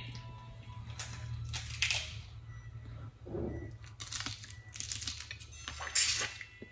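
Boiled crawfish being peeled by hand, with shells cracking and wet sucking and slurping at the mouth as the crawfish are sucked out, coming in several separate bursts.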